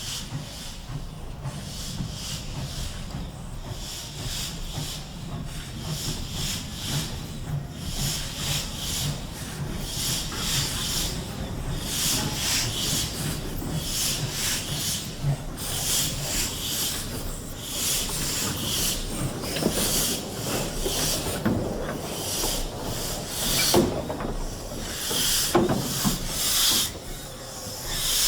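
GWR 0-6-0 Pannier Tank steam locomotive no. 6412 working, its exhaust beats chuffing with a hissy rhythm of about two beats a second over a low rumble. The beats come a little faster and louder later on, with a few short squeals near the end.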